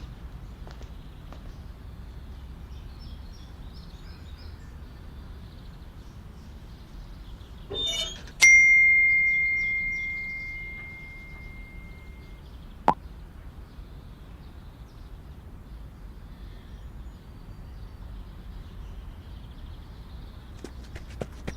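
A single bright ding from a struck small bell, one clear tone that fades away over about four seconds, just after a short rustle. Faint bird-like chirps and a steady low background hum run underneath, with one sharp click a few seconds after the ding.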